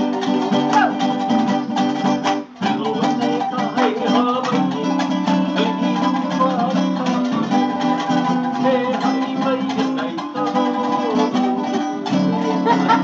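Hawaiian kanikapila-style jam: acoustic string instruments strummed and picked together, with a brief break about two and a half seconds in.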